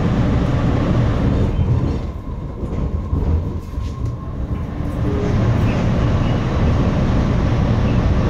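MBTA Red Line subway train moving slowly, heard from inside the lead car: a steady low rumble of wheels and traction motors on the rails. It eases off for a couple of seconds about two seconds in, with a few faint clicks, then builds back.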